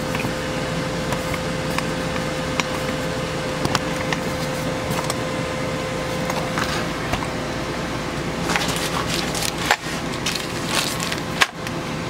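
Air conditioner running steadily, a constant whooshing noise with a faint steady hum in it. A few light knocks and clicks sound over it, several close together a little past the middle.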